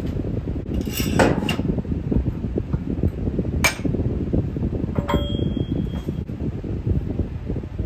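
Steel parts knocking and clanking as a suspension control arm and press adapter cups are handled on a shop press: a double clank about a second in, a sharp knock a little past three and a half seconds, and a ringing clink at about five seconds. A steady fan hum runs underneath.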